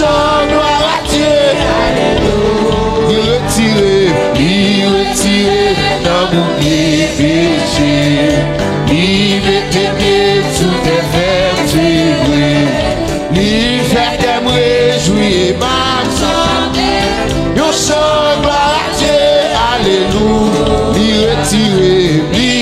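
Haitian gospel praise song (louange): voices singing over instrumental accompaniment with percussion.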